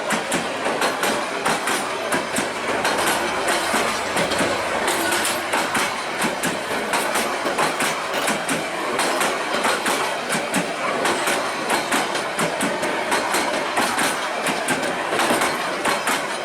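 Passenger train coaches rolling past, their wheels clattering over the rail joints in a steady, continuous run of clicks.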